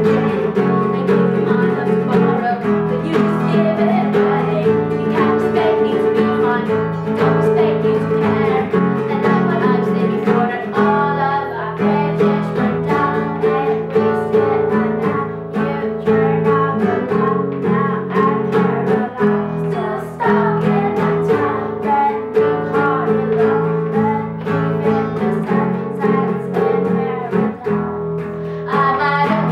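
Acoustic guitar accompanying girls singing a pop song in English, the guitar holding chords that change every couple of seconds. Two voices take turns at the lead.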